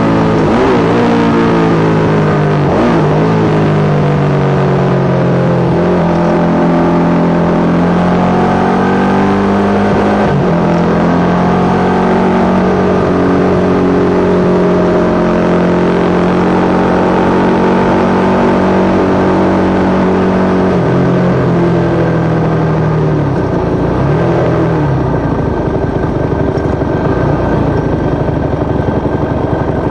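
Yamaha YZ450 single-cylinder four-stroke engine in a supermono race bike running hard, its pitch stepping and gliding up and down as it is ridden. The bike has a persistent misfire that the owner has been unable to cure.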